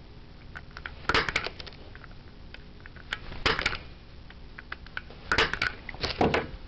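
Punch-down tool seating the wires into the insulation-displacement contacts on the back of a Category 3 jack: groups of sharp snapping clicks, four times, about a second and a half to two seconds apart.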